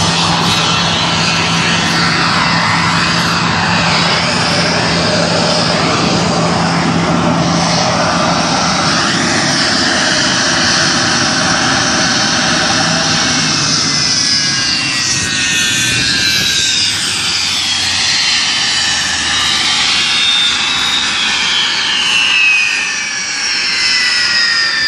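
Jet fighter's engine running loud and steady, then from about fifteen seconds in its high whine falls slowly and steadily in pitch.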